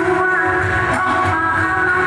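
Music playing over a PA system, with held melody notes over a steady low accompaniment.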